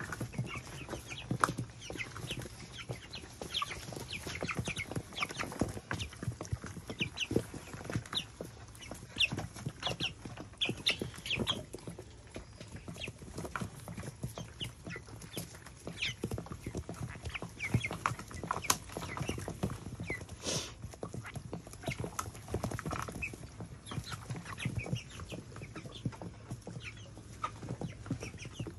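A flock of young chickens cheeping and clucking while they feed, with many quick taps of beaks pecking at the metal feeder pan.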